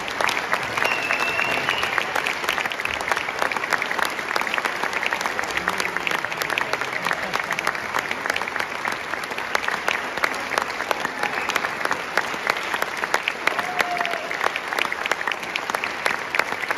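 Audience applauding steadily, many hands clapping at once, with a voice or two calling out briefly.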